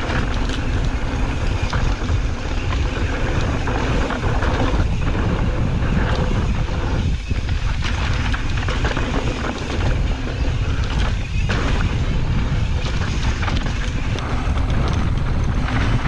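Mountain bike descending a dirt trail: steady rush of wind on the microphone over tyre roar, with a constant run of small knocks and rattles from the bike over rough ground.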